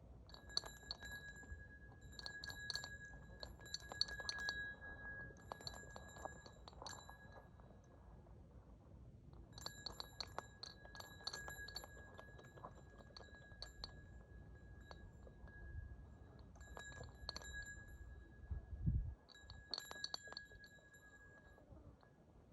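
Groups of light clinking clicks, each group carrying a thin steady ringing tone, with a dull thump about nineteen seconds in.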